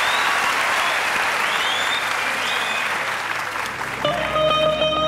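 Audience applauding, with a few rising whistles. About four seconds in, an electric bağlama starts playing, plucked with a plectrum, its held notes ringing over the applause.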